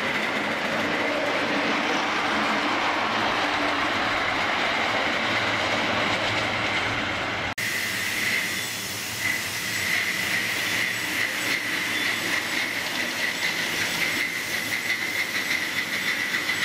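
A 5-inch gauge miniature steam railway train running. It is first heard from on board, with a steady clatter of wheels on the rails; after a cut about seven seconds in, it is heard from trackside as it draws into the station, with a rhythmic clatter. A steady high-pitched squeal runs through both parts.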